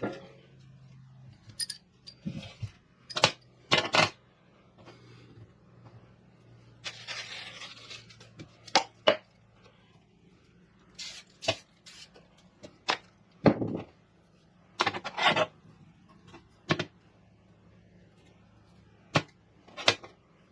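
Steel rods handled and set down with scattered sharp metallic clinks and knocks, with a short hiss of Boeshield rust-protectant spray about seven seconds in.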